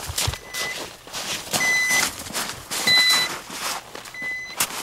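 PIEPS avalanche transceiver beeping on receive as it picks up a buried transmitter's signal. Four short, high beeps come about every second and a quarter, with rough rustling noise between them.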